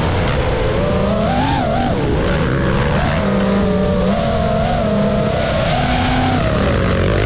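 FPV racing drone's propellers buzzing, their pitch rising and falling continually with the throttle, over the engines of motocross dirt bikes running on the track.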